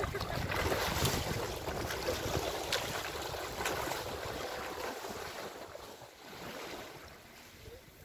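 Wind on the microphone with sea water sloshing and splashing in the shallows, a few sharp splashes in the first few seconds. It grows quieter over the last few seconds.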